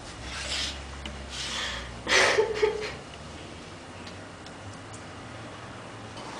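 Three short breathy, rustling noises from two people embracing in the first three seconds, then quiet room tone with a few faint ticks.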